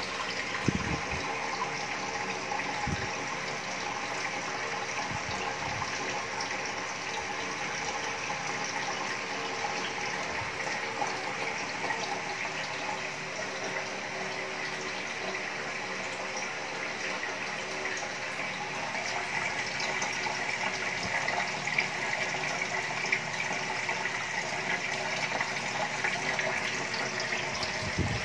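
Water from a homemade overhead aquarium filter falling back into the tank, a steady splashing and trickling, with a faint hum from the submersible pump under it.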